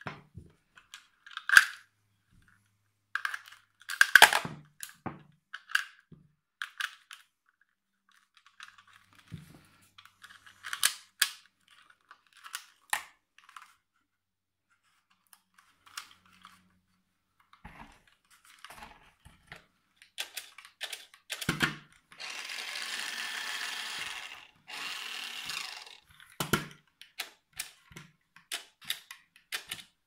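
Plastic clicks and knocks from a toy remote-control car and its controller being handled, the loudest about 1.5 and 4 seconds in. A little after twenty seconds in, the RC car's small electric drive motor runs in two steady bursts of about two seconds each, with a short break between them.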